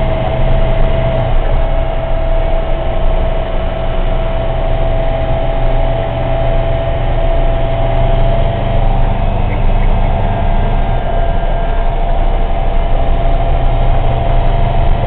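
Military truck's engine and road noise heard from inside the cab while driving, a steady low rumble with a constant high whine over it.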